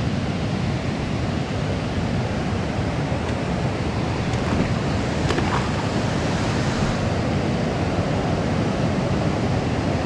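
Steady rush of river water spilling over a low weir and running through rocky shallows.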